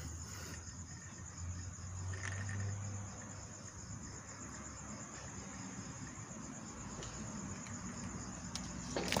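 Night insects chirring in a steady, high-pitched pulsing trill, with a faint low rumble underneath and a sharp click near the end.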